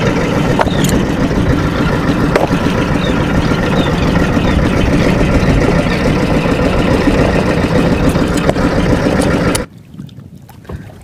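Small fishing boat's engine running steadily, with wind on the microphone. About nine and a half seconds in it cuts off abruptly, leaving a much quieter background of wind and water.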